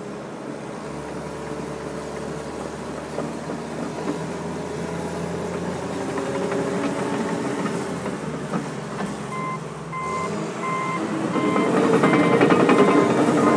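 John Deere 750J crawler dozer's diesel engine running, growing louder near the end as it works harder, with a reversing alarm beeping about twice a second from about two-thirds of the way in.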